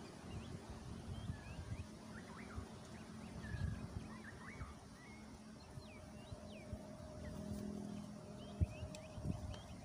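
Soft low knocks and rustles of a portable gas stove's burner and hose being handled and fitted, with scattered short bird chirps in the background.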